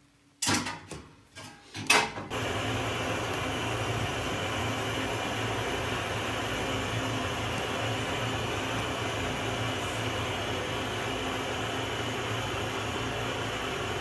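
A few knocks and clicks, then a steady whirring hum of a fan or blower starts abruptly about two seconds in and runs on evenly.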